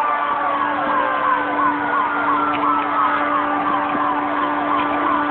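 Emergency vehicle sirens: one in a fast yelp, rising and dropping about two and a half times a second, while another slowly falls in pitch as it winds down, over a steady low hum.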